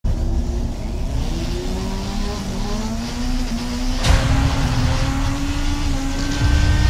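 Logo intro sound effect of a vehicle engine revving, its pitch climbing over the first few seconds. A sharp hit comes about four seconds in, after which the engine note holds steadier and creeps upward.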